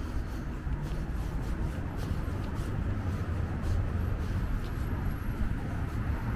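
Steady low rumble of passing city street traffic.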